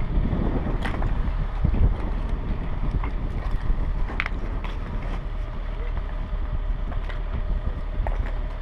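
Concrete rubble and blocks of TNT handled and set in place: a few sharp knocks and clicks, over a steady low rumble.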